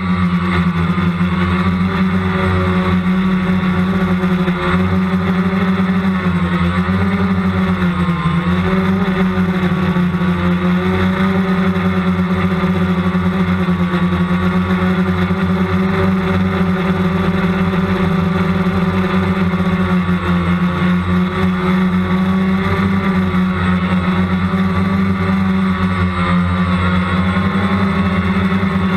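Small two-stroke gasoline engine of a 1/5-scale off-road RC car running close up, held at a steady high speed with its pitch wavering only slightly.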